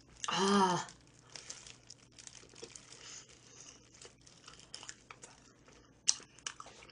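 A short vocal cry at the start, a reaction to the burning spiciness of the chicken. It is followed by faint crinkling of a disposable plastic glove and soft biting and chewing of a fried chicken wing.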